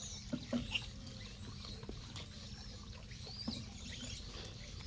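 Faint high, thin chirps and a few soft clicks over a low steady rumble.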